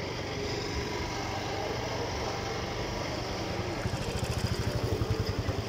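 An engine running steadily at low revs, with a rapid low throbbing that grows stronger in the second half.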